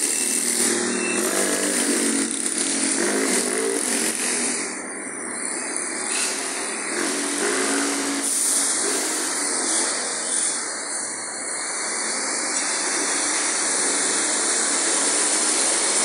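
Steady street traffic noise, with motorcycle engines whose pitch rises and falls as they pass, most clearly in the first few seconds and again about eight seconds in.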